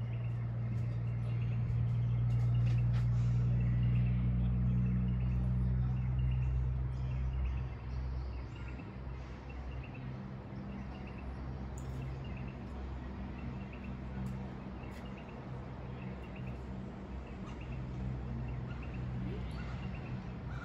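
A steady low engine hum, louder for the first several seconds and then dropping back, with small birds chirping repeatedly.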